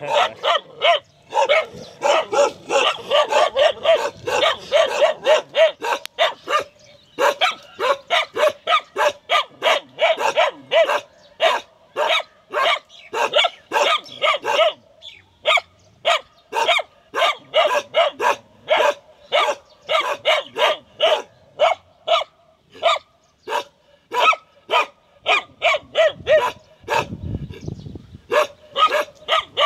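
A dog barking loudly and fast, about three barks a second in long strings with only brief pauses. A short low rumble comes in near the end.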